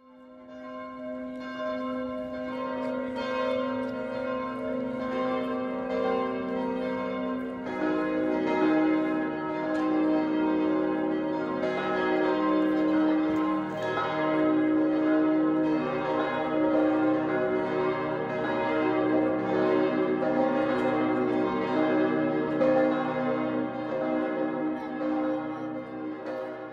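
Several church bells ringing together, the peal that calls people to the service. More bells join in during the first seconds, and another about eight seconds in makes the peal louder. The ringing dies away near the end.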